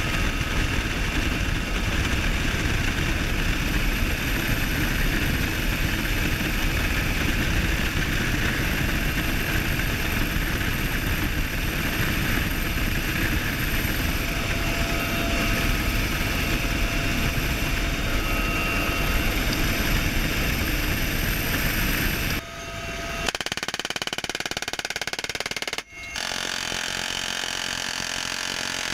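UH-1Y Venom helicopter in flight, heard from its open cabin door: steady rotor and turbine noise with heavy wind rush. About 22 seconds in the sound changes abruptly, losing much of its low rumble, and shifts again near 26 seconds.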